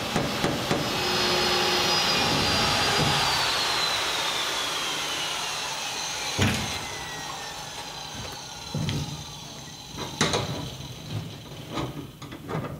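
Corded drill with a hole saw cutting through plywood, a rough grinding noise under the motor's whine, the whine falling slowly in pitch from about three seconds in. A sharp knock about six and a half seconds in, then scattered knocks and handling sounds.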